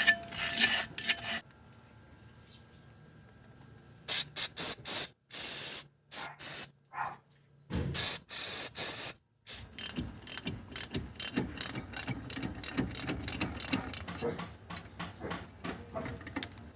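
Hand tools working on a Toyota Innova's rear axle: after a short scrape and a pause, several short loud bursts of noise, then a long run of rapid ratchet-wrench clicking as fasteners are turned.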